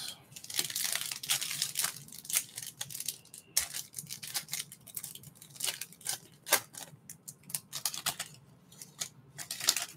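Foil trading-card pack wrapper being torn open and crinkled by hand: an irregular run of sharp crackles and rips, thickest in the first few seconds.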